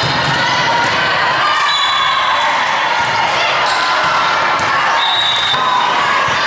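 Volleyball rally in a large gym: the ball is struck several times, sharp hits over the steady chatter and shouts of players and spectators around the courts.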